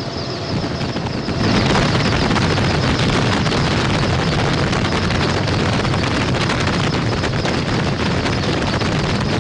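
Helicopter running close by: a steady, loud rotor and engine noise that gets louder about a second and a half in.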